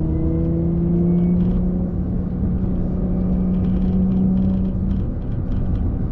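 Car running on the road, steady low rumble with the engine note climbing slightly in the first second, then holding before it eases off about five seconds in.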